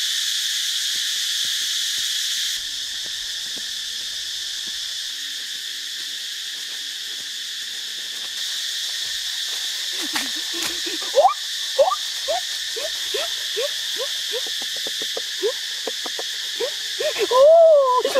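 Steady, high-pitched insect chorus in rainforest. From about ten seconds in, a run of short rising animal calls about two a second joins it, and a louder wavering call comes near the end.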